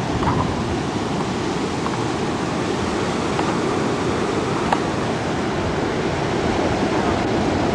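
Rough ocean surf stirred up by an approaching hurricane: a steady wash of breaking waves, with a few faint clicks.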